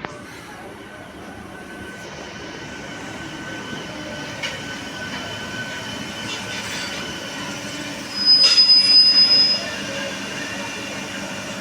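Indian Railways train running along the track, growing steadily louder, with thin high-pitched squeal from the wheels and rails throughout. About eight seconds in, a much louder high, piercing tone lasts about a second and a half.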